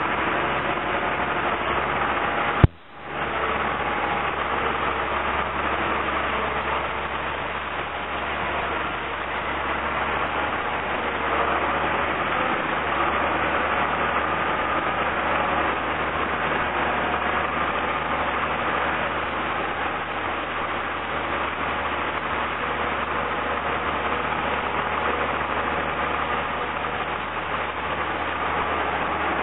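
Unimog U1700 truck's diesel engine running steadily at low revs. One sharp click about two and a half seconds in, followed by a brief dip in level.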